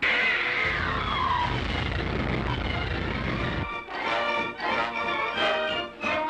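A sudden loud, noisy cartoon sound effect with a falling whine over about a second and a half, cutting off at about four seconds. Orchestral cartoon music follows.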